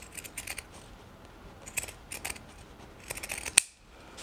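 Pinking shears snipping through fabric in short bursts of cuts, trimming and notching a bag lining's curved seam allowance to cut down bulk, with a quick run of snips and one sharp snap a little after three seconds.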